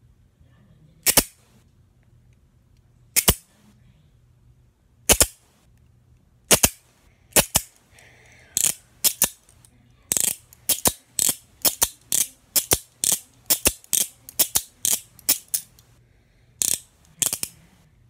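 Handcuffs ratcheting, the cuff arm clicking through the locking teeth. A few separate sharp clicks a second or two apart, then from about halfway a quick run of clicks, two or three a second, and two more near the end.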